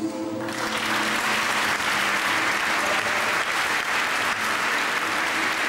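Audience applauding a dance performance. The applause breaks out as the music's last notes die away about half a second in.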